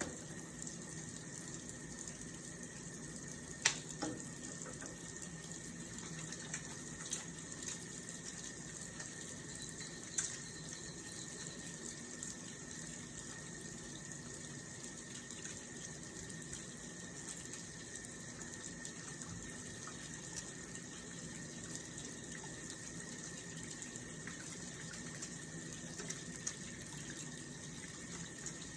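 Handwashing at a sink: tap water running steadily, with a sharp click about four seconds in and a few fainter clicks later.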